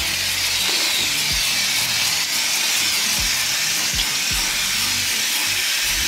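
Steady hiss of water spraying from a garden hose nozzle onto a Lennox heat pump's outdoor condenser coil, washing the coil with plain water.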